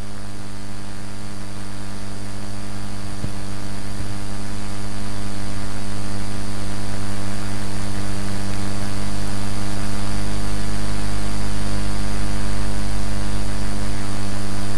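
Steady electrical mains hum: a low drone with a buzz of higher tones above it, slowly growing louder.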